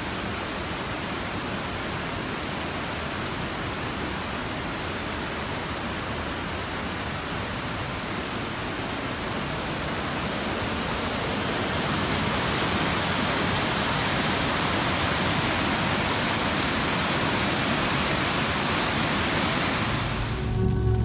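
Fast-flowing stream, white water rushing steadily; the sound of the water grows louder about halfway through.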